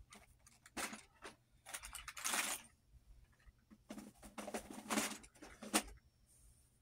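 Makeup items being handled and sorted: soft rustling and light clicks in irregular bursts.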